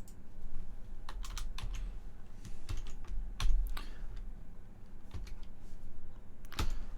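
Typing on a computer keyboard: irregular key clicks, some in quick clusters, over a low steady hum.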